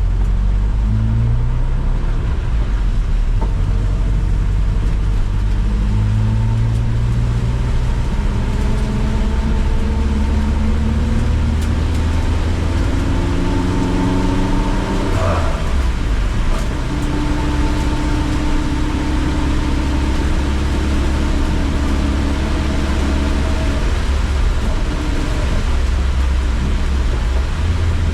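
Car engine at full throttle on a race track, its pitch climbing in several steps as it shifts up through the gears, with a short sharp noise about halfway through. It then holds a steadier note over a constant hiss of wet tyres and heavy rain.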